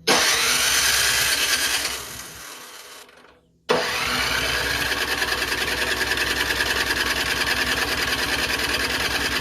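Craftsman 24-inch snowblower engine being cranked by its starter in two tries. The first is a short burst that spins down. The second is longer, with steady fast pulses. The engine turns over but doesn't fire, a no-start put down to a fuel problem.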